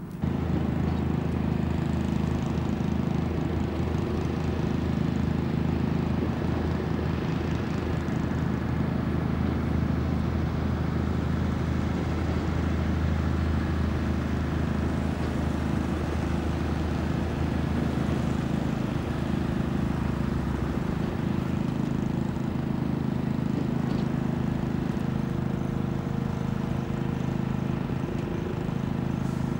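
A steady low mechanical drone with a constant hum; its lowest tone drops away about two-thirds of the way through.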